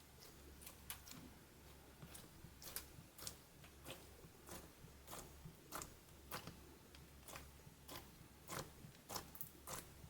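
Clear slime being pressed and folded by hand, giving faint, irregular sharp clicks and pops of trapped air, about one or two a second, over a low hum.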